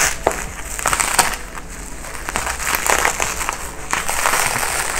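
Plastic bubble wrap rustling and crinkling as it is handled to unwrap a motorcycle exhaust pipe, with many irregular crackles.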